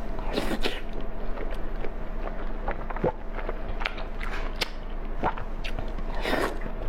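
Close-miked mouth sounds of someone biting and chewing braised pork belly: an irregular run of wet smacks and small clicks.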